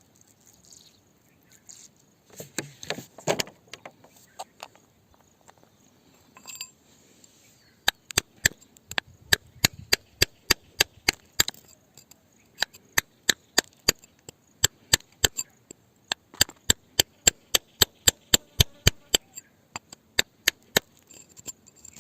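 Rapid sharp strikes of a hand tool on rock, in runs of several a second, starting about a third of the way in and stopping shortly before the end. Before that, a few scattered knocks and scraping.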